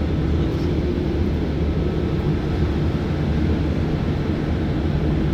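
Steady, loud low drone of shipboard machinery on a tanker, an even rumble with a constant hum and no pause or change.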